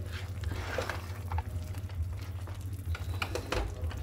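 Spatula stirring thick, creamy shahi paneer gravy in a steel frying pan, with scattered scrapes and knocks against the metal as the gravy simmers and sizzles over a raised gas flame. A steady low hum runs underneath.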